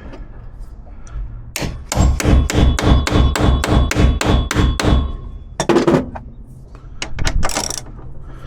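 Hammer striking metal: a quick run of about a dozen blows at roughly four a second, each with a ringing clang, then a couple of separate knocks.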